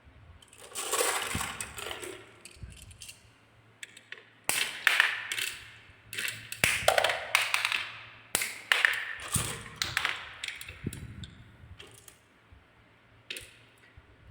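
Marbles rolling and clacking down a marble run track, in several separate runs with sharp clicks as they hit the track pieces.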